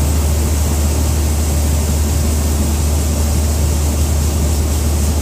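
Combine harvester running steadily while unloading wheat through its auger: a constant low engine hum under a steady rushing noise.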